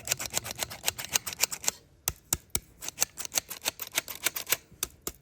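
A rapid, irregular run of sharp clicks and taps, several a second, with a short pause about two seconds in.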